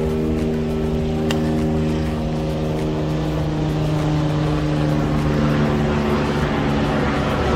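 An engine running steadily at a constant pitch, its hum weakening near the end.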